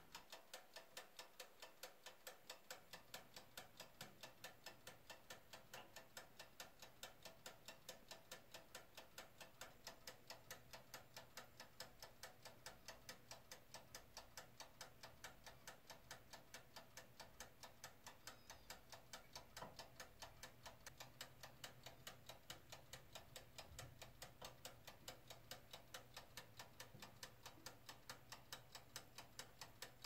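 Mechanical dial timer of a Hamilton Beach toaster oven ticking faintly and steadily, about two or three ticks a second, as it counts down while the bread toasts.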